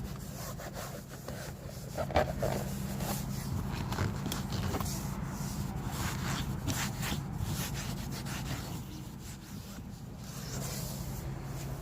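Applicator pad rubbing protective dressing onto a van's door panel in repeated back-and-forth wiping strokes, over a steady low hum.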